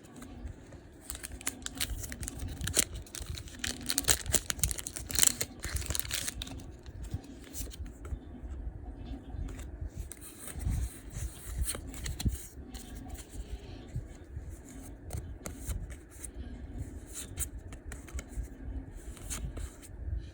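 Foil booster pack wrapper being torn open and crinkled, densest about one to six seconds in, then scattered rustles and clicks of the pack and trading cards being handled.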